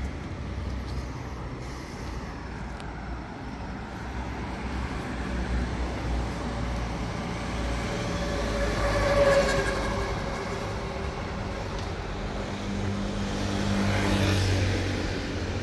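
Road traffic on a city street: a steady low rumble with vehicles passing, loudest about nine seconds in and again near the end.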